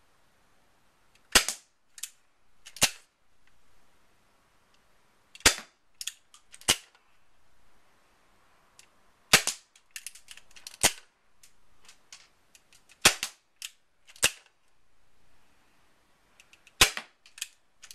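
Spring-powered airsoft revolver being fired about five times, each sharp snap followed by smaller clicks as the hammer is pulled back for the next shot. The clusters come roughly every four seconds.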